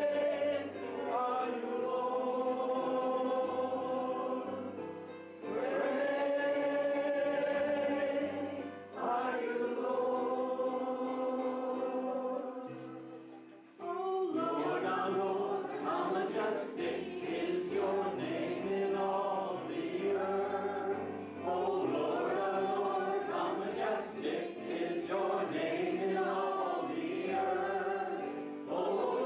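Slow church music: sustained choir singing over held low bass notes, moving in phrases of a few seconds with brief breaths between them.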